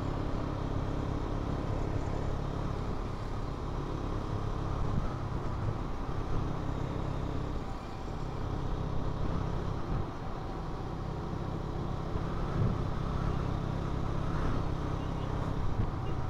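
Motorcycle running steadily while riding along a road, its engine drone continuous and even.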